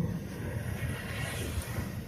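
Low rumble of jet airliner engines, with a hiss that swells about a second in.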